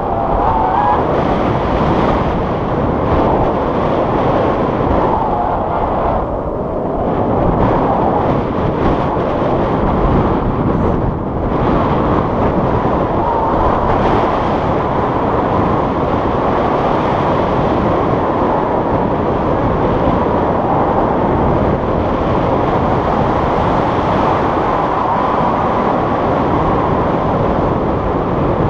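Steady, loud wind noise buffeting a GoPro action camera's microphone in paraglider flight, easing briefly about six seconds in.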